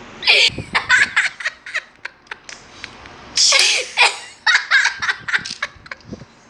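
Children laughing and giggling in repeated short bursts, loudest about half a second in and again around the middle.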